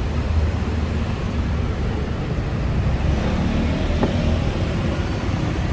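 Steady rumble of road traffic passing on a busy city street.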